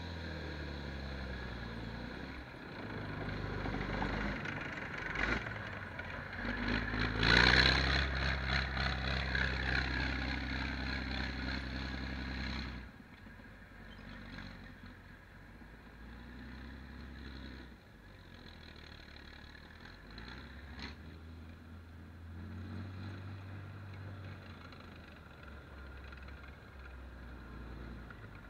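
2K12 Kub tracked missile launcher driving past, its engine running steadily and getting louder as it comes close. About 13 seconds in the sound drops off suddenly, and the engine carries on more quietly as the vehicle moves out across the field.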